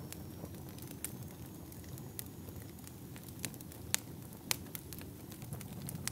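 Fire crackling, with a steady low rumble and scattered sharp pops and snaps, a few louder ones near the middle.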